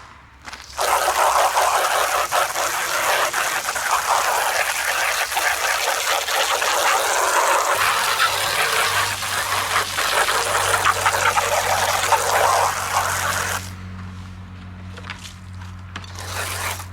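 Steady spraying onto the under tray while its power-steering fluid buildup is cleaned off, running for about thirteen seconds and then stopping. A low steady hum comes in about halfway through.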